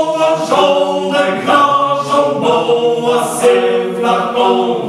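Mixed choir of men's and women's voices singing a cappella in several parts, moving from one held chord to the next every half second or so.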